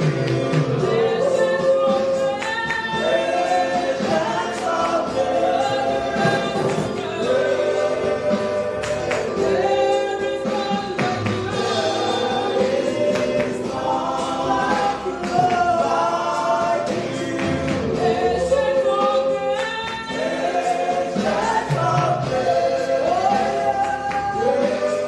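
Gospel choir singing a worship song with instrumental accompaniment.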